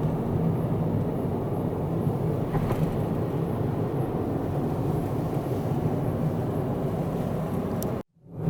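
Steady low rumble of a car running, which cuts out briefly near the end and comes straight back.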